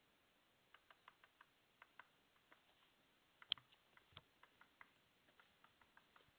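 Near silence broken by faint, irregular small clicks and ticks, a few a second, with one sharper click about three and a half seconds in.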